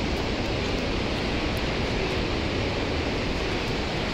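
Steady rushing wind, buffeting the microphone, with an uneven rumble underneath.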